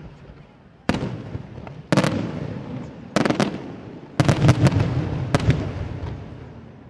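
Aerial firework shells bursting: a series of sharp booming reports, some in quick pairs and a tight cluster a little past the middle, each trailing off in a rumbling echo.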